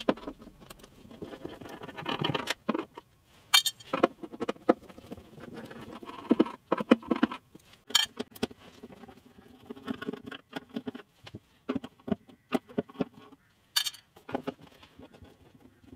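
Screwdriver working out small recessed screws from the underside of a keyboard: scraping and ticking of the bit in the screw heads. A few sharp metallic clinks come as screws are dropped into a small metal tin.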